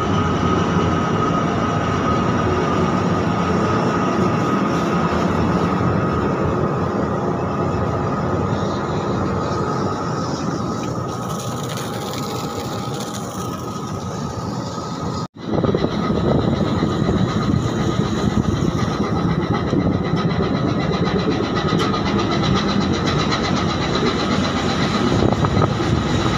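Ship's engine machinery running steadily while the ship is under way, a loud continuous rumble with a faint steady whine over it. The sound drops out for an instant about fifteen seconds in and comes back a little louder.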